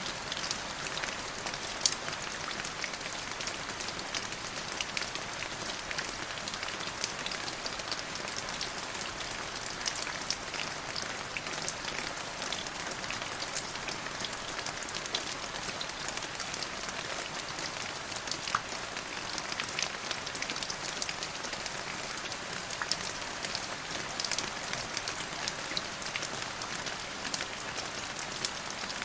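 Steady rain falling: an even hiss of rain with many sharp individual drop ticks.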